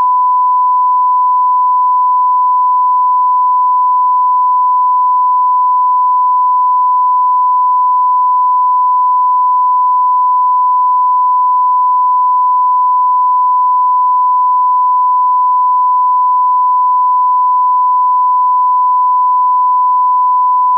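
Continuous 1 kHz sine-wave test tone, one pure pitch held at a constant level without a break. It is the line-up reference tone that runs with a broadcast test card.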